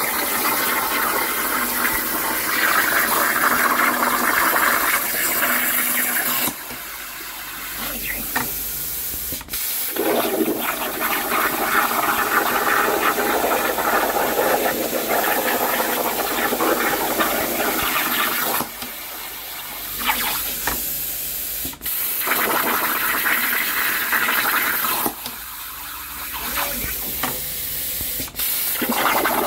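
CNC plasma cutter cutting sheet metal: a loud, steady hiss from the plasma arc. Three times the hiss drops to a quieter level for about three seconds, and each time the louder cutting hiss comes back with a sharp crack as the arc restarts.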